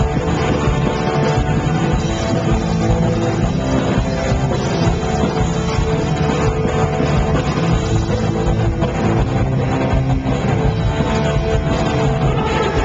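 Punk rock band playing live through a stage PA: distorted electric guitar, bass and drums, loud and constant.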